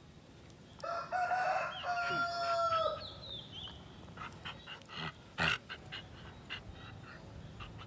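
A rooster crowing once, a loud call of about two seconds that starts about a second in and falls away at the end. It is followed by a scatter of short, sharp sounds, the loudest about five and a half seconds in.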